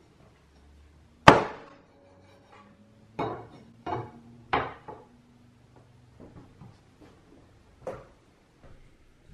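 Hand-forged O-1 tool steel meat cleaver chopping through a wrap into a wooden cutting board. One hard chop about a second in, with a short ring from the blade after it, then three quicker chops and one lighter knock near the end.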